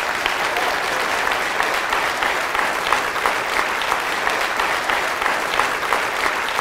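Large audience applauding, steady dense clapping that holds at an even level.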